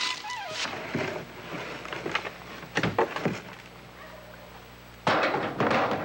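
Irregular bursts of scraping and knocking, with a longer, louder scrape about five seconds in.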